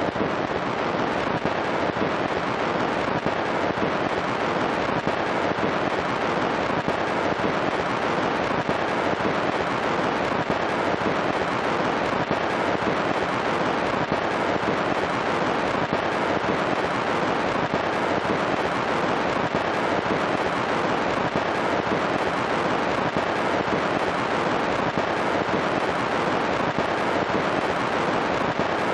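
Vinyl record surface noise from a turntable stylus at the end of the record: dense, steady crackle over hiss, with no music.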